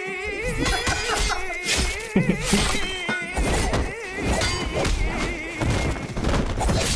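Action-film fight soundtrack: a song with a wavering sung voice over heavy music, cut through by loud punches, thuds and smashing hits, the sharpest about two seconds in.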